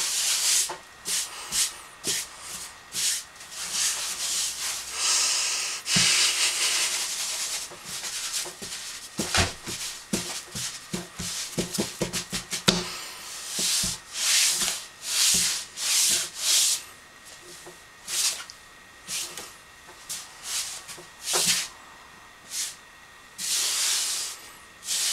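Irregular rubbing or scraping strokes, each about half a second to a second long, with a quick run of sharp knocks about halfway through.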